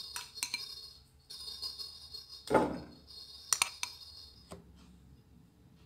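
Light clinks and taps of a utensil against a glazed earthenware dish as soft butter is scraped into it, with a louder knock about two and a half seconds in and sharp clinks a second later, then quieter.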